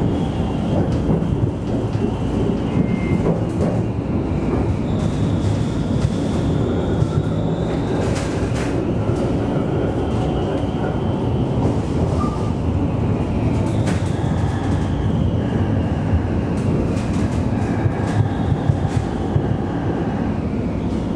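Alstom Citadis tram running along its track, heard from the driver's cab: a steady rumble of wheels on rail. A few sharp clicks come through, and a faint high whine rises and falls.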